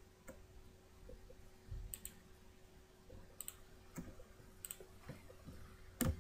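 Faint computer mouse button clicks, about half a dozen spread over several seconds, some in quick pairs like double-clicks.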